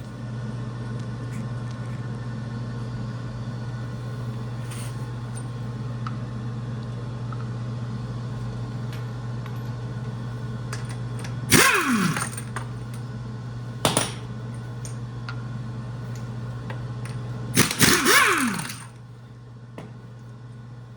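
A steady machine hum, with two short, loud bursts of a power tool whose pitch falls as it winds down, about 12 and 18 seconds in, and a sharp knock between them.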